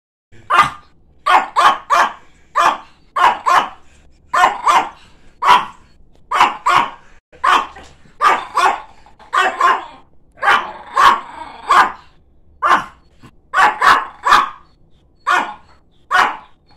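Chihuahua barking over and over, an angry run of short, sharp barks. They start about half a second in and come in quick runs of two to four, a little under two a second.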